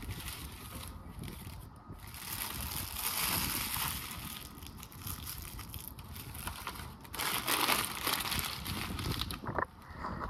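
A paper fast-food wrapper and paper takeout bag crumpled up by hand, in two long bouts of crinkling.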